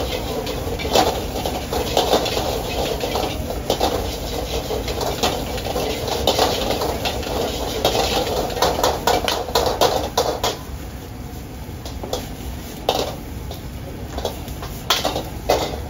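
Metal ladles scraping and clanging against carbon-steel woks as egg fried rice is stir-fried over high gas burners, with a steady rush of the flames and frying underneath. The clangs come thick and fast at first and grow sparser about ten seconds in.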